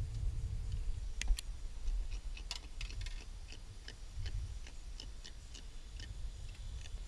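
Irregular sharp ticks and clicks, the loudest a little over a second in, over a steady low rumble.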